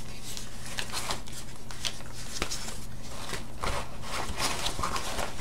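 Rustling and light rubbing of a travel shoe bag's rip-stop fabric and its padded separator panel being handled, with scattered soft clicks and crackles.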